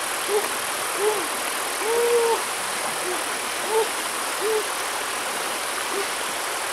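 A string of short, pitched animal calls at irregular intervals, one held a little longer about two seconds in, over the steady rush of a shallow stream.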